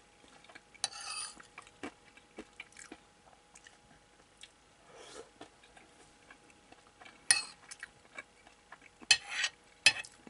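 A person chewing hamburger steak, with scattered small mouth clicks. Near the end a metal spoon scrapes and taps against a ceramic plate a few times.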